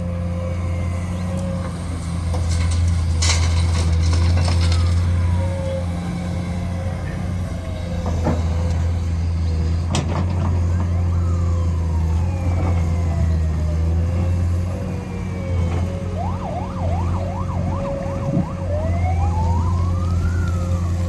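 A heavy road-construction machine's engine runs with a steady low drone. Over it, a siren glides up and down, switching to a rapid yelp near the end and then one slow rise and fall. A few sharp clicks are heard.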